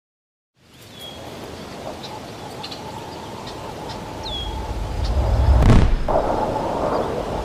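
Outdoor ambience fading in: a few short bird chirps over a steady hiss, with a low rumble that builds from about four seconds in and a whoosh about two-thirds of the way through.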